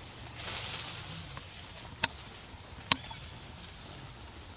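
Outdoor ambience with a steady high hiss. A brief rustling hiss comes about half a second in, and two sharp clicks follow just under a second apart in the middle.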